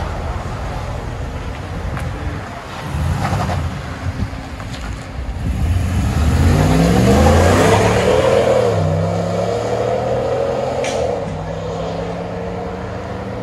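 2020 Ram 1500's 5.7 L Hemi V8 through a 3-inch dual exhaust with a Flowmaster 40 Series muffler, rumbling with a short rise about three seconds in. It then accelerates away, its note climbing and loudest around seven to eight seconds in. The pitch drops back near nine seconds and holds steady as the truck drives off.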